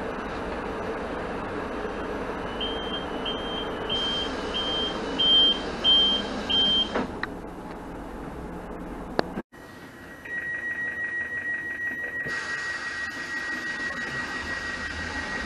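EN57AKM electric multiple unit's door-closing warning: a run of about seven short, evenly spaced high beeps over the train's steady hum, then the doors shutting with a knock. After that, another train's door warning sounds as a continuous high, fast-pulsing tone lasting about five seconds.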